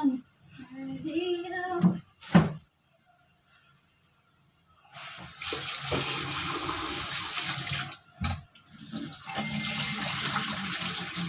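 Kitchen tap running into a stainless steel bowl of prawn heads being rinsed in the sink, starting about five seconds in, breaking off with a knock near eight seconds, then running again. A single sharp knock comes earlier, about two seconds in.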